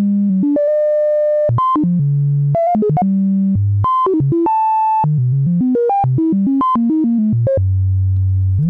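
Modular synthesizer tone whose pitch jumps between random stepped values from the Make Noise Richter Wogglebug's stepped random voltage, at irregular intervals. Some notes are held for up to about a second where the button freezes the value.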